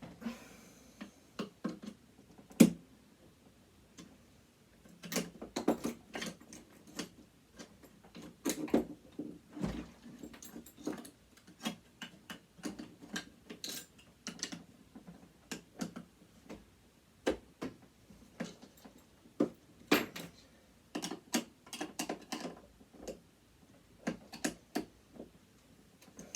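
Irregular clicks, taps and clinks of hand tools and small metal parts against a sewing machine being taken apart, with one sharp knock about two and a half seconds in.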